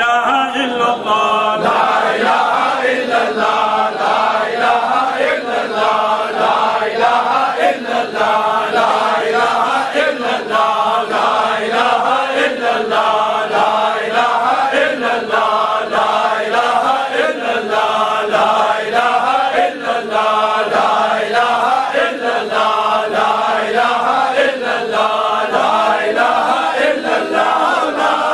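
A group of men chanting dhikr together, one short phrase repeated over and over in a steady rhythm.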